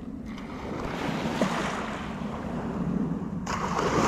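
Sea waves washing onto the shore, with wind on the microphone. A louder surge of surf starts sharply about three and a half seconds in.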